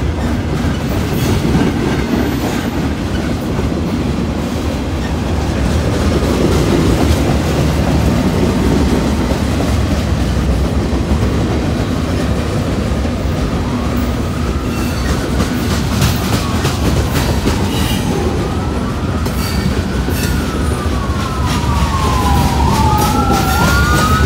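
Freight train cars rolling past, with a steady rumble and clatter of wheels on the rails. In the last third an ambulance siren wails over it, gliding up and down in pitch.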